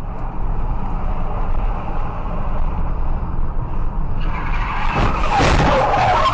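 Car's road and engine noise heard from inside the cabin, then about four seconds in, hard braking with tyres skidding on the asphalt as another car cuts across close in front.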